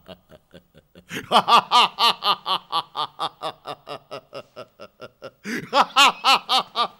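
An older man laughing aloud in a long run of rapid ha-ha-ha pulses that grows louder about a second in, eases off, and swells again near the end.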